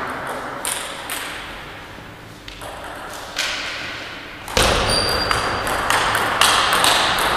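Table tennis rally: the ball clicks sharply off the paddles and bounces on the table, a hit every half second to a second or so. About halfway through, a louder, steadier background noise comes in under the hits.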